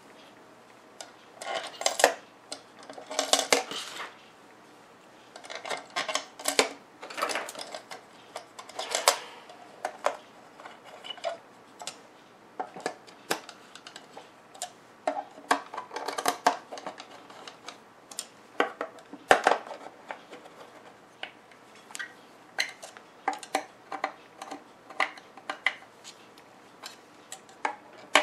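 Irregular clicks, taps and short clattering scrapes of small hard parts being handled on a workbench, the knocks coming in loose clusters. Under them runs a faint steady hum.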